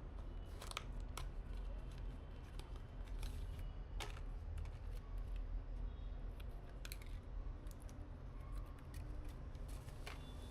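Scattered small clicks and handling noises as computer parts are worked on during a PC assembly, over a steady low hum.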